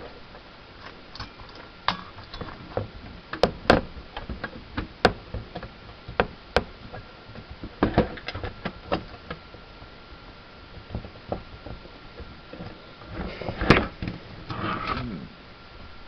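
Irregular clicks, taps and knocks of hard parts being handled as a hard drive and its caddy are worked out of an iMac G3's case. A longer stretch of scraping and rustling comes about 13 seconds in, holding the loudest knock.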